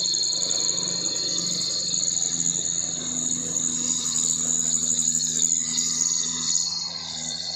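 A steady, high chorus of insects chirring, with an engine running low and steady underneath.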